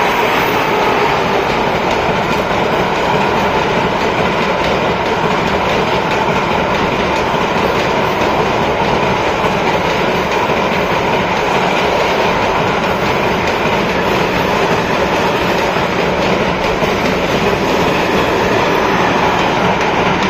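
Container freight train hauled by two electric locomotives passing close by: a steady, loud rumble and clatter of wagon wheels on the rails.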